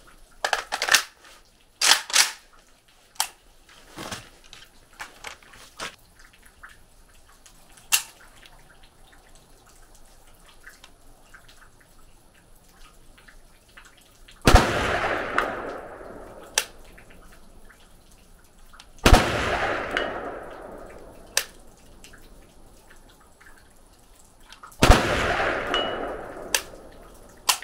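Rifle fired three times from a tripod rest, the shots about five seconds apart, each with a long rolling echo that fades over about two seconds and a faint sharp tick about two seconds later. A few sharp clicks and knocks come before the first shot.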